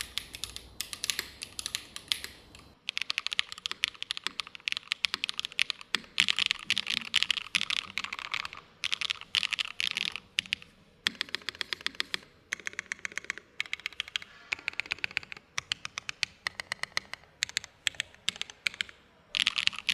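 Fast typing on a Loong60 mechanical keyboard with GMK Rainy Day keycaps: rapid key clacks in runs broken by short pauses. About three seconds in, the recording switches from a Sony B10 to a Shure MV7 microphone, and the sound loses its low rumble.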